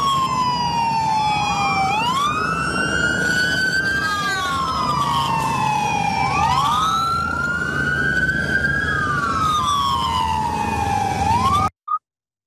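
Several police car sirens wailing together, each sliding slowly down and back up in pitch and overlapping out of step, over a steady low rumble. The sound cuts off suddenly near the end.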